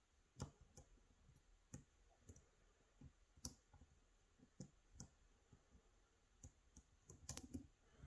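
Faint, irregular clicks of a hook pick and tension wrench working the pins of an Assa 600 cylinder lock with gin spools, with a quick run of clicks near the end.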